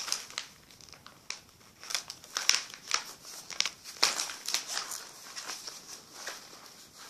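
Plastic document folders crinkling and rustling as they are handled, in irregular bursts of crackling.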